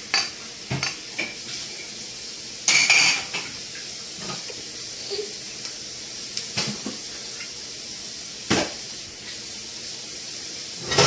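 Metal fork clinking and scraping against a stainless steel bowl of spaghetti: a few scattered clinks, the loudest a short scrape about three seconds in, over a steady faint hiss.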